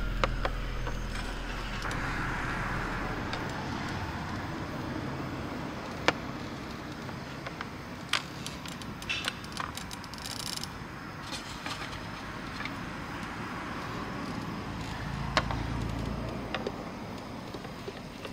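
Steady background road traffic with passing cars, and a few light clicks and knocks from plastic AeroPress Go coffee-maker parts being handled on a table.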